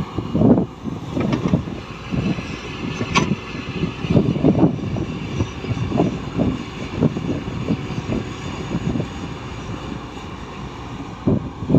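Heavy earthmoving machinery at work: an engine running with irregular low rumbles and knocks, and one sharp clank about three seconds in.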